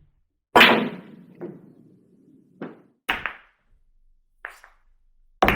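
Billiard balls clacking: a hard strike about half a second in, followed by a low rumble that dies away over about two seconds. Several lighter clicks of balls colliding follow, one of them a quick double, and another sharp strike comes near the end.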